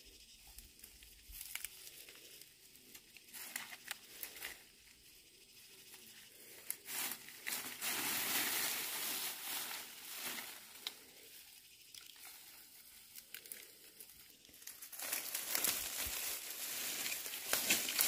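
Rustling and crackling of dry leaves and plant stems as leafy weeds are pulled up by the roots and handled. There are scattered crackles at first, then louder rustling in two stretches, one mid-way and one near the end.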